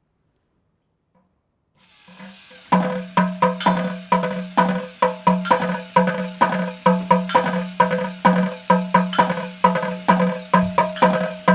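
K'nex drum machine playing a looping beat, pins on its turning wheels setting off sharp clicky hits about four a second, with a brighter, hissier hit roughly every two seconds over a steady low hum. It starts up about two seconds in, after near silence.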